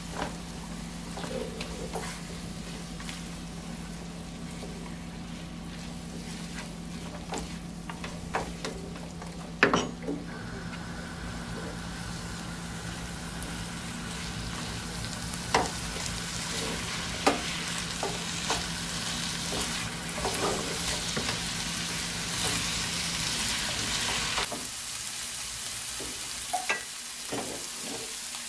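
Chopped broccoli, carrot and onion sizzling in oil in a nonstick frying pan as a silicone spatula stirs and scrapes them, with occasional sharp taps of the spatula on the pan, the loudest about ten seconds in. A low steady hum underneath stops about three-quarters of the way through.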